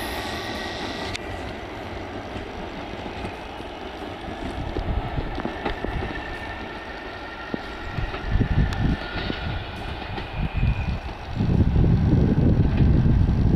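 SNCB AM 409 electric multiple unit running away into the distance, its motor whine and rail noise fading. From about eight seconds in, and more strongly near the end, gusts of wind buffet the microphone.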